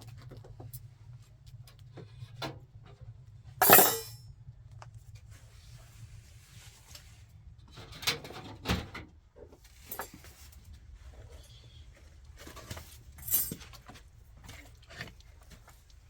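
Irregular knocks, clinks and clatters of household objects being handled, loudest about four seconds in and again around eight and thirteen seconds, over a faint low steady hum.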